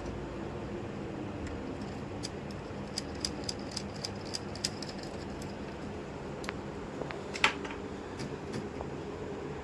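Light clicks and taps of a laptop's plastic and metal parts being handled during reassembly: a quick run of small clicks a few seconds in, then one sharper click, over a steady low room hum.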